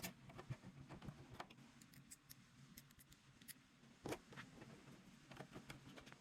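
Faint, scattered clicks and taps from fitting a 3D-printed PC case side panel and its screws, with a louder click at the start and another about four seconds in.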